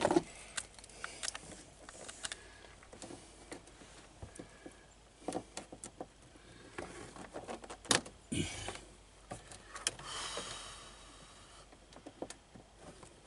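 Scattered clicks, taps and rustling from hands and tools working on air-line fittings under a truck's dashboard, with a few sharper knocks about five and eight seconds in.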